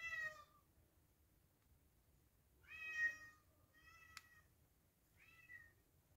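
Domestic cat meowing: four short, faint meows spaced a second or two apart, with a single sharp click about four seconds in.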